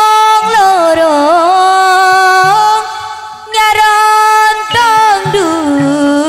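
A woman singing in long, held, ornamented notes that bend and waver in pitch, sung into a microphone. Short low beats repeat underneath in the second half.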